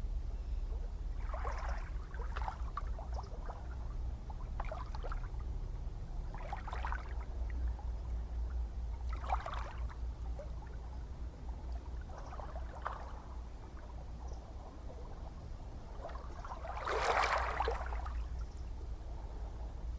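Gentle ocean waves lapping and splashing over a steady low rumble. The splashes come irregularly, a few seconds apart, and the largest falls near the end.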